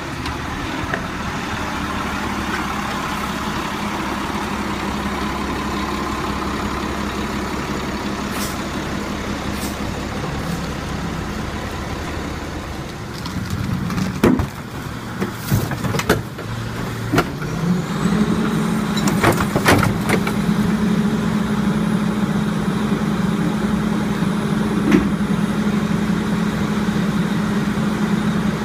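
Diesel engine of a Crane Carrier garbage truck running steadily as the truck pulls up. About halfway through come a series of clanks and bangs as two plastic carts are hooked onto the Leach rear loader's hydraulic cart tippers and lifted. The engine then settles into a steadier, stronger hum while the tippers are working.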